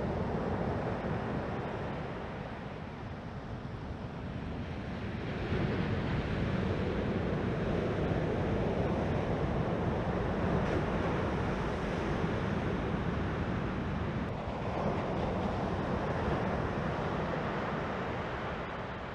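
Ocean surf breaking on a beach: a steady wash of waves, with wind on the microphone. It grows louder about five seconds in.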